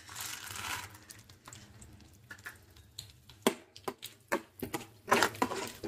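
Chana dal poured into hot tempering oil in a steel pan, giving a soft sizzle for about a second. Then a metal spoon stirs and scrapes the pan, with scattered clicks and pops and a louder burst of scraping near the end.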